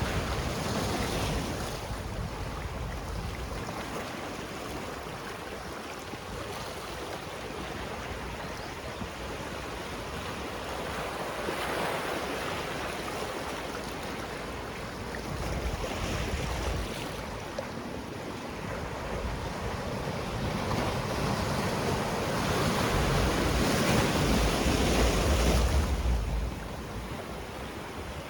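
Sea waves breaking and washing along the shore in a steady surge and hiss that swells several times. The largest wave builds over several seconds near the end with a deep rumble, then falls away suddenly.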